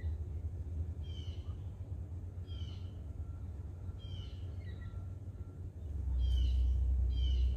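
A songbird calling outdoors, repeating a short, high, downward-sliding note about every second or so, over a steady low rumble that grows louder about six seconds in.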